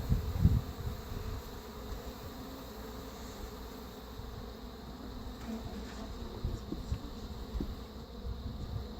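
Many honey bees buzzing steadily around an opened hive, with a few low rumbling thumps, the loudest about half a second in.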